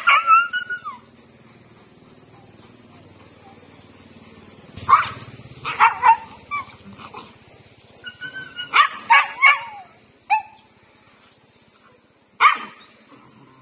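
Dog barking in short clusters of sharp barks and yelps, a few seconds apart: a black female dog giving defensive warning barks at a larger male dog that is pestering her.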